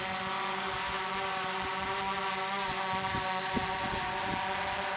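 Small multirotor drone's propellers and motors running with a steady, high whine that holds an even pitch.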